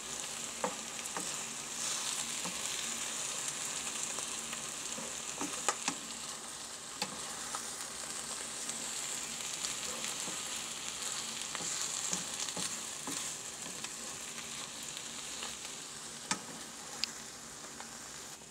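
Morels, onion and egg sizzling steadily in a frying pan while a wooden spatula stirs them, with scattered short knocks and scrapes of the spatula against the pan.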